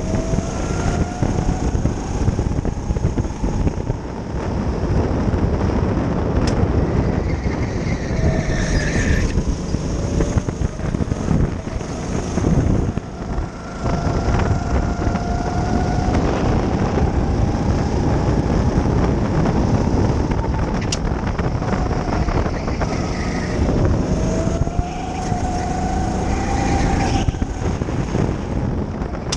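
Go-kart engine heard from the driver's seat at racing speed, its revs rising along the straights and dropping for the corners, over a dense rumble.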